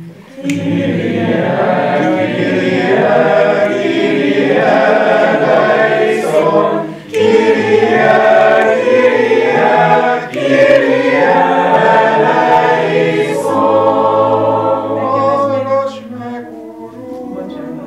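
A small mixed group of voices singing a short Taizé chant together, with no clear instrument. The phrases break off briefly about seven and ten seconds in, and the singing is quieter near the end.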